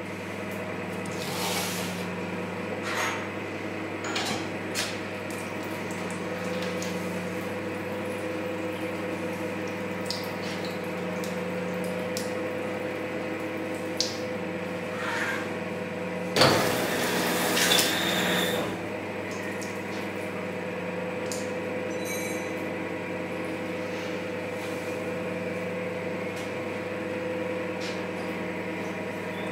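Sheep-casing tubing machine running with a steady electric hum while wet casing is fed through its rollers, with scattered clicks and handling knocks. A brief loud rush of noise comes about sixteen seconds in.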